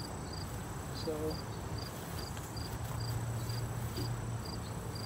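Crickets chirping in a steady, regular rhythm, two or three short high chirps a second.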